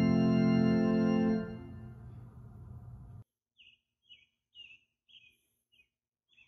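Organ holding a chord that is released about one and a half seconds in, its echo dying away in the sanctuary until it cuts off. Then a bird chirps in short, repeated calls, about two a second.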